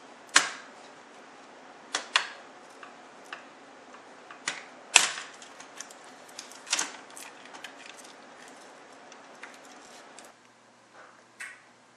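Clicks and clacks of a Toshiba Satellite A215 laptop's plastic case and motherboard being handled as the board is worked loose and lifted out. There are a handful of sharp clacks, the loudest about five seconds in, with lighter ticks between.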